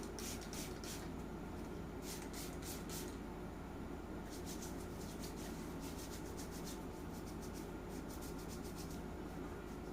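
Hands rubbing together in quick, soft brushing strokes, several a second, coming in short runs with a longer run from about four seconds in, over a steady low room hum. This is hand cleaning before handling a baby.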